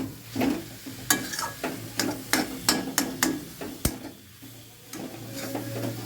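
Spatula stirring a thick filling in a pan, scraping and knocking against the pan in quick irregular strokes, with a faint sizzle underneath.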